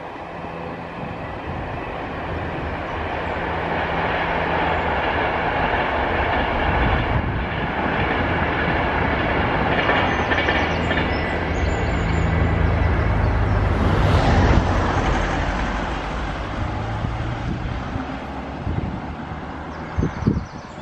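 A train passing by: a rumble that swells over several seconds, is loudest about two-thirds of the way through, then dies away. A few sharp knocks near the end.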